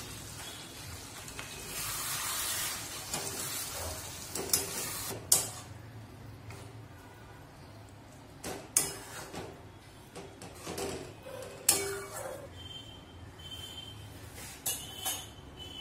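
A spatula stirring thick moong dal in a metal wok on the stove, with a low sizzle and several sharp clacks of the spatula striking the side of the wok.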